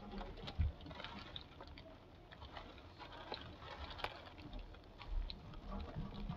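Light rain falling, with many scattered drops tapping close by and a couple of low bumps.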